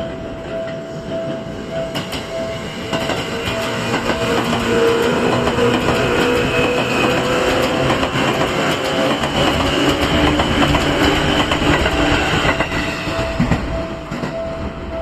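Seibu Railway level-crossing alarm ringing its repeating electronic tone while a Seibu electric train runs past over the crossing. The train noise builds about three seconds in, stays loud for most of the time, and fades near the end, with the crossing tone carrying on throughout.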